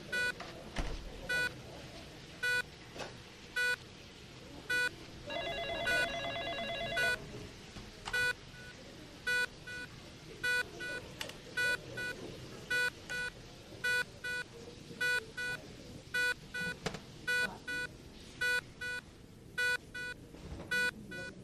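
Electronic hospital monitor beeping about once a second, a second beep series joining in during the latter half. About five seconds in, a telephone rings with a fast trill for about two seconds.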